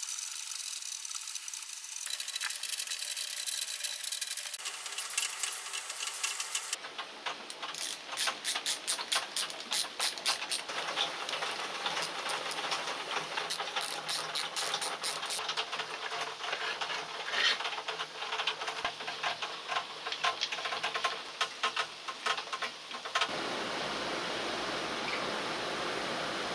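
Hand work on the metal parts of an old power tool: a screwdriver turning screws, with many small metal clicks and rattles as parts are fitted, broken by cuts between clips. About 23 seconds in, this gives way to a steady hiss.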